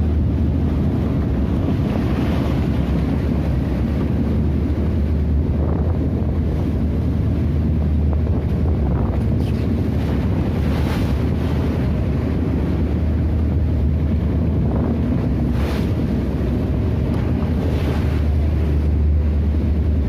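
Boat engine running with a steady low drone while wake and waves rush and splash along the hull, with wind buffeting the microphone and a few brief louder surges of spray.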